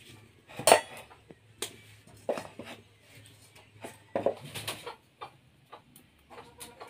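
Scattered knocks and clatters from handling firewood and a metal kadai at a wood-fired clay stove. The loudest comes about a second in, and another falls about four seconds in as the kadai is set on the stove, with small crackles from the fire in between.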